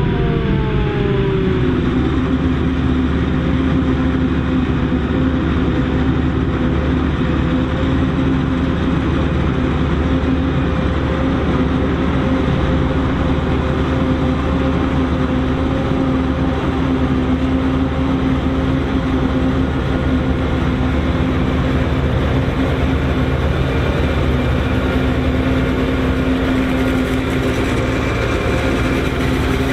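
Self-propelled John Deere forage harvester chopping maize, with the tractors pulling silage trailers running alongside it: a loud, steady machinery drone with a steady hum. A pitch falls away in the first couple of seconds.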